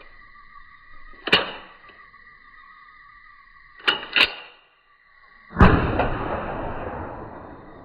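Steady high held tones, broken by a sharp crack about a second in, two quick cracks near the middle, and then a heavy boom that rumbles away over about two seconds.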